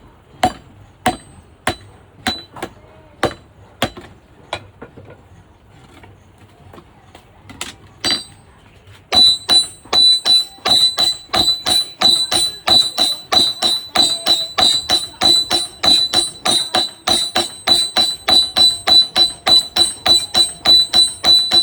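Blacksmith's hammer striking metal on an anvil, each blow ringing. Spaced blows at first with a lull of lighter taps, then from about nine seconds in a fast, steady run of about three ringing blows a second.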